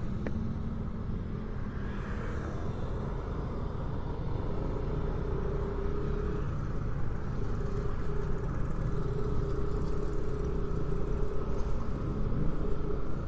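Motor scooter on the move: a steady engine drone with wind and road rumble on the rider's action-camera microphone, growing a little louder near the end.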